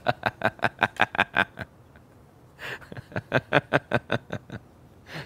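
A man laughing hard in two bouts of quick, rapid ha-ha pulses, with about a second's pause between them.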